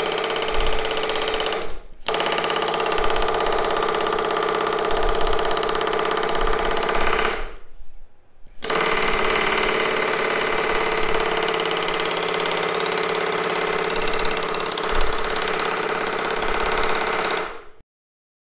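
Pneumatic rivet gun hammering rapidly through a tape-wrapped set against a wooden bar, bending the trailing edge of an aluminium elevator skin over a wooden brake. It fires in three long runs, with a brief break about 2 seconds in and a pause of about a second near 8 seconds, and stops just before the end.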